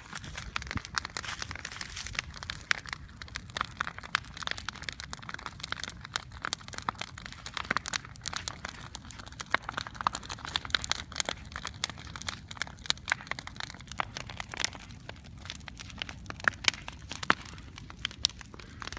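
Large wood bonfire burning, crackling with many irregular sharp pops over a steady low rumble.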